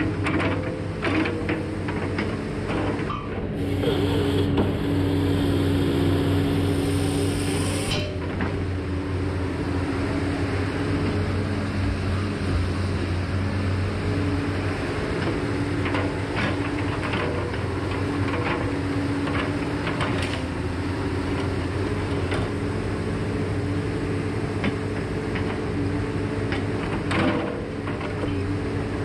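Tracked log processor running steadily, its diesel engine and hydraulics under load as the processing head feeds and cuts a log to length. A louder spell with a hissing whine from about three and a half to eight seconds in as the bar saw cuts, and scattered knocks of wood against the head and the steel rack.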